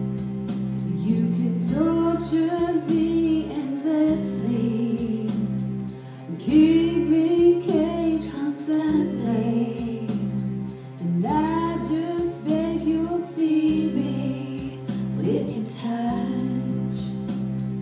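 Female vocals singing a slow song over steady instrumental backing, in three sung phrases broken by two short pauses.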